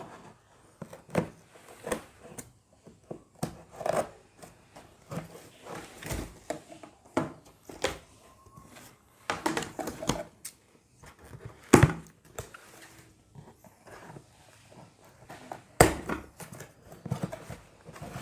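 Packaging being handled as an electric kettle is unboxed: crinkling and rustling with irregular knocks and thuds, the loudest about twelve and sixteen seconds in.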